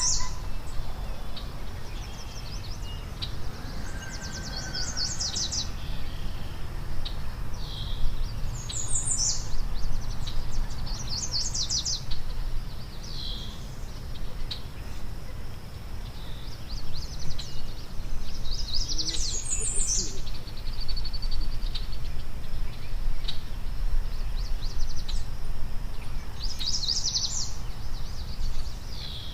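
A songbird singing short phrases of quick high notes every few seconds, over a steady low rumble.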